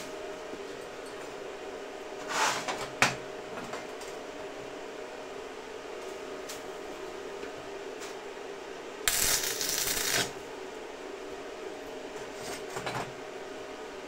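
Steel workpiece being handled on a steel welding table: a few metal clinks, then a louder clatter lasting about a second near the middle, over a steady background hum.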